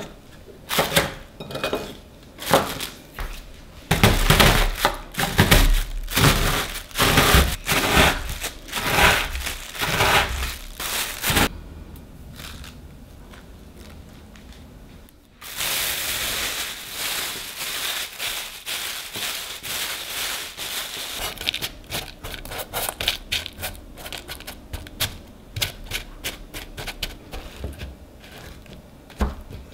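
Plastic bag crinkling, with many sharp cracks and crunches as digestive cookies are crushed to crumbs inside it. About halfway through it goes quieter, then steady rustling of the bag sets in. Near the end come repeated soft taps as the buttered crumbs are pressed into a paper-lined cake tin with a metal potato masher.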